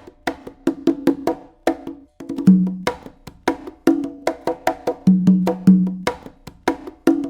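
Homemade African drums played in a quick, uneven rhythm of sharp, ringing strikes. A deeper, longer-ringing drum note comes in a few times, about two and a half seconds in and again around five to six seconds.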